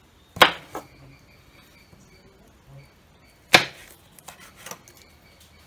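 Large kitchen knife chopping green beans on a wooden cutting board: two sharp chops about three seconds apart, each knocking on the board, with a few lighter taps after them.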